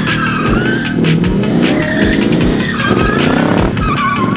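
Mustang drifting through a corner: the engine revs hard and the tyres squeal in wavering bursts, over background music with a steady beat.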